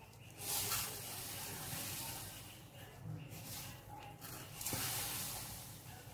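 Fine granulated sugar poured from a measuring cup into warm milk in a steel pot: a soft, hissing pour in three runs with short breaks between.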